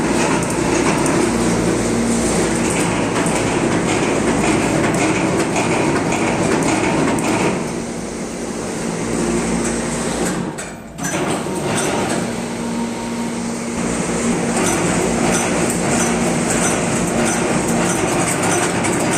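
Factory machinery for ceiling fan production running steadily, with a dense rattling clatter over a constant hum. It drops briefly about eleven seconds in, then resumes.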